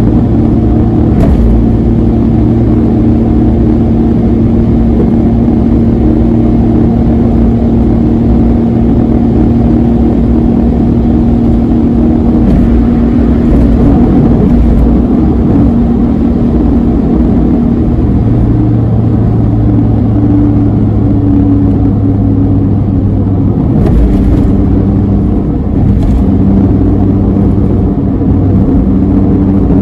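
Suzuki Alto Van's 658 cc three-cylinder engine running at expressway cruising speed under steady load, mixed with road and tyre noise, heard from inside the cabin. The engine note shifts a little past halfway.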